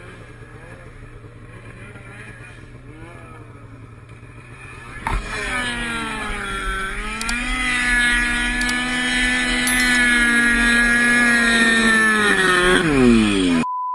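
Snowmobile engine heard close from the rider's own sled: faint and unsteady at first, then opened up sharply about five seconds in, the pitch dipping and then holding steady for several seconds before falling away as the throttle is let off near the end. The sound cuts off abruptly just before the end.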